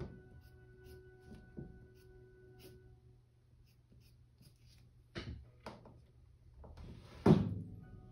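Colored pencil scratching on paper in short shading strokes. Near the end comes a louder thump and rub as the drawing on the rotating animation disc is turned.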